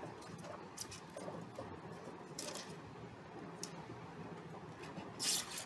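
Handling noise from taking microscope slides out of a polystyrene packing tray: a few faint, short scrapes and rubs, the loudest near the end.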